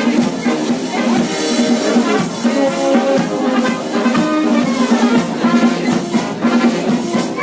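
Music playing with a drum beat, at a steady loud level.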